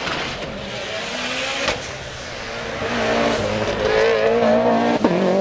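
Race-built 2014 Subaru STI's turbocharged flat-four accelerating hard through a sequential gearbox, the engine note climbing and getting louder. Two sharp cracks, the second as the pitch drops with an upshift near the end.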